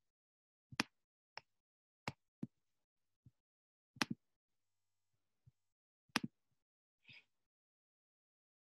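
Computer clicking: a string of sharp single and double clicks about a second apart, with silence between, as the pointer is clicked through web pages. A brief soft hiss comes near the end.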